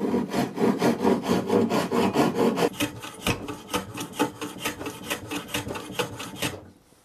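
A handsaw rasps back and forth through a wooden block clamped in a bench vise, cutting away the waste. About three seconds in, a jack plane takes over, shaving the block down toward flush in repeated strokes.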